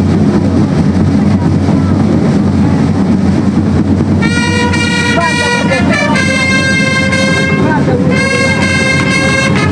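Long held notes from herald trumpets (chiarine) start about four seconds in. Each note is steady, and the pitch shifts twice with short breaks between notes. A steady low rumble runs underneath.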